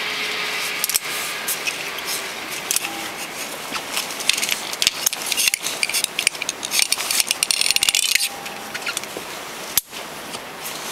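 Metal carabiners and a zip-line pulley trolley clinking and rattling as they are handled and clipped onto a steel cable, with many quick clicks that come thickest in the middle and latter part, over a steady hiss.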